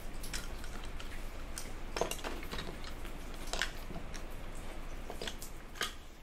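Scattered small knocks and clinks of clay mosaic pieces and hand tools being moved about on a worktable, over a low steady hum.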